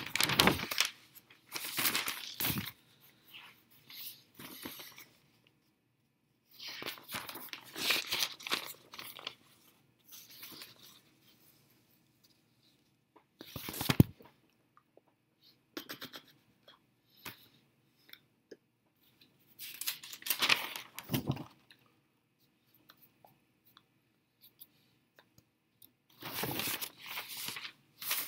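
Sheets of newspaper being handled and torn: about eight bursts of rustling and ripping, each a second or two long, with pauses between.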